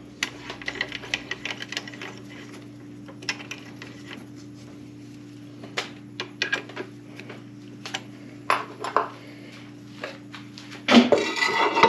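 Small metal clicks and taps as drill bits are handled and a smaller bit is fitted and tightened in a keyed drill-press chuck, over a steady machine hum. Near the end, a louder clatter and scrape as a heavy cast-iron pulley is set back on the drill press's steel table.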